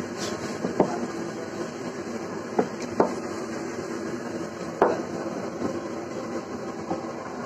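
Four sharp knocks on a wooden work table, two close together in the middle, over a steady background hum.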